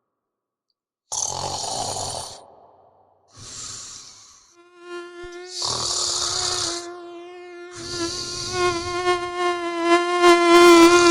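A person snoring, four snores in a row after a second of silence. A mosquito's whine comes in about halfway through, a steady high buzz that runs on under the later snores and is loudest near the end.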